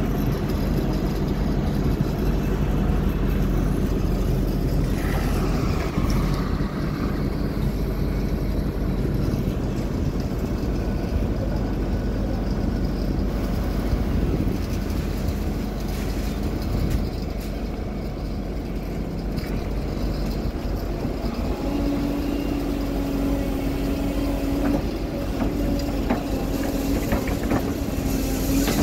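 Construction machinery engine running steadily. A steady higher tone joins about three quarters of the way through.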